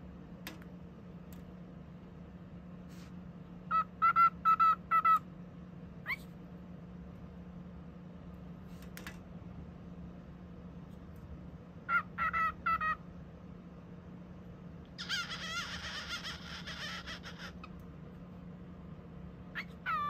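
Male cockatiel chattering: a quick run of short chirping notes about four seconds in and again about twelve seconds in, then a couple of seconds of scratchy, raspy chatter. A steady low hum lies under it, with a few faint clicks between the calls.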